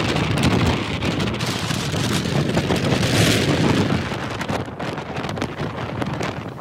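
Gusty wind buffeting the microphone, over the steady rush of a fast, stony mountain river.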